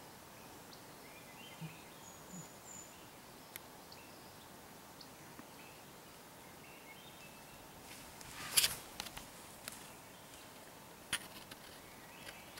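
Quiet forest background with a few faint bird chirps and scattered sharp clicks. About two-thirds of the way in comes a brief cluster of loud cracks and crackling, and a single sharp crack follows a few seconds later.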